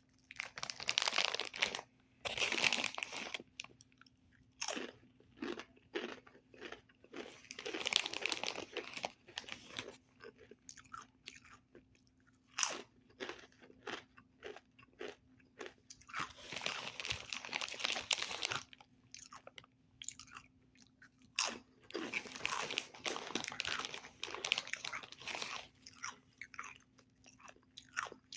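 Someone eating Takis rolled tortilla chips close to the microphone: loud crunchy bites and chewing in clusters, with single sharp crunches between them.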